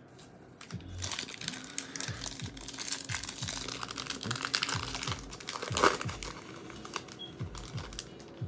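Foil trading-card pack wrapper being torn open and crinkled in the hands, starting about a second in, with a loud crackle just before the six-second mark.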